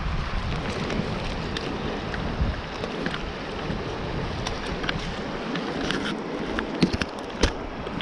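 Steady rushing of a mountain stream mixed with wind on the microphone, with a few sharp handling clicks near the end.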